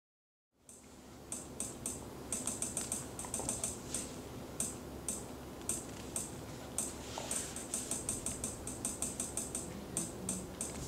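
Irregular quick, sharp clicks, singly and in fast runs like typing on a computer keyboard, over a faint steady low hum. They start about half a second in.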